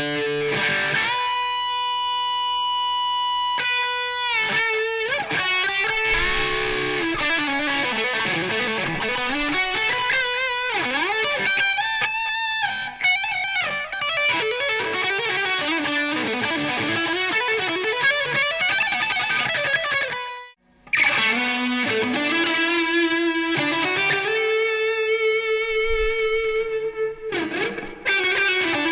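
PRS S2 Studio electric guitar played through a driven amp tone: sustained single notes and melodic lead phrases with string bends and vibrato. The playing breaks off for a moment about two-thirds of the way through, then resumes with long held notes.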